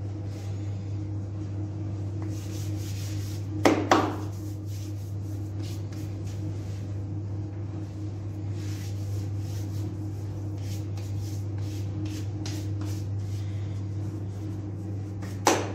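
Electric dough mixer running with a steady hum while its metal arms turn through flour and water, mixing Sangak bread dough, with repeated rubbing and scraping strokes. A pair of sharp knocks comes about four seconds in and another near the end.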